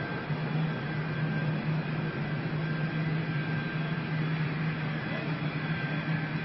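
Steady engine drone: a constant low hum and a thin high whine over a rushing noise.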